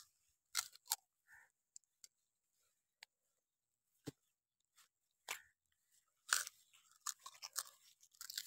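Raw sugarcane being bitten and torn with the teeth and chewed: a few sharp cracks at first, then a dense run of crunching from about six seconds in.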